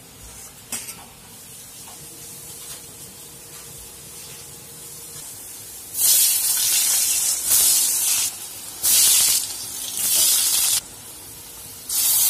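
Potato pieces dropped one at a time into hot oil in a steel kadai, each setting off a loud burst of sizzling. There are five bursts in the second half, after a quieter start.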